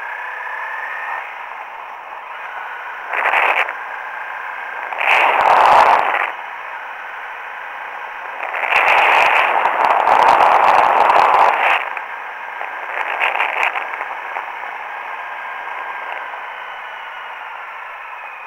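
Honda CRF 250L's single-cylinder engine running under a steady rush of riding wind on the microphone, sounding thin and narrow. Four louder gusts of wind buffet the microphone, the longest lasting about three seconds.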